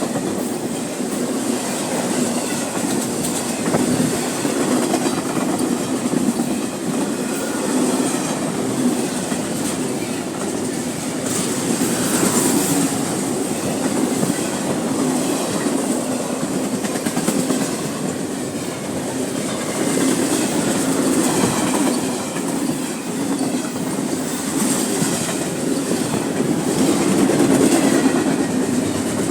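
CSX freight train cars rolling past steadily, wheels clattering over the rail joints.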